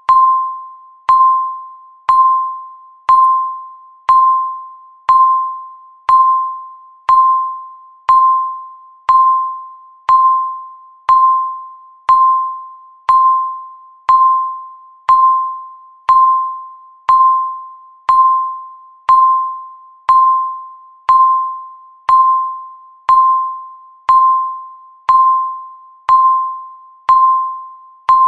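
Countdown timer beeping once a second: a single high electronic beep that starts sharply and fades away before the next one, evenly repeated.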